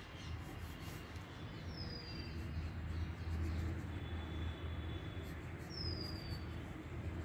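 Outdoor background: a steady low rumble with two short, falling bird whistles about four seconds apart.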